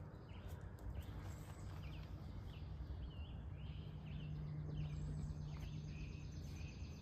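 Outdoor ambience of short bird chirps, repeating every second or so, over a low steady hum.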